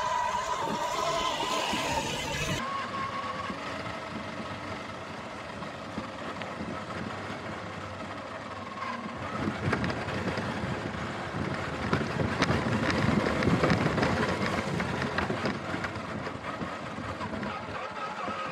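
Small electric RC trail truck driving over dirt and tree roots: a thin motor and gear whine with scuffing, ticking and knocks from the tyres and chassis on the ground. The sound changes abruptly about two and a half seconds in, then gets busier with knocks for a few seconds past the middle.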